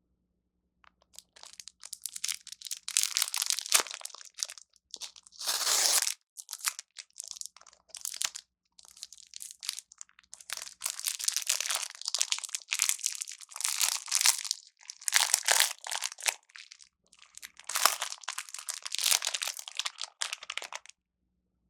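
Plastic food packaging being crinkled and torn open by hand, in irregular handling bursts with one louder rip about five and a half seconds in.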